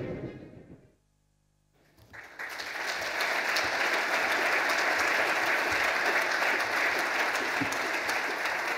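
Audience applauding steadily, starting about two seconds in after the end of a video soundtrack fades away and a short silence.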